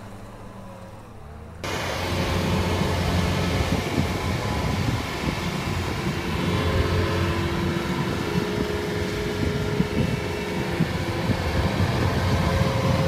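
Kubota crawler combine harvester's diesel engine running steadily and loudly as the machine tracks through a flooded rice paddy, cutting in suddenly about a second and a half in; before that, a quieter tractor engine.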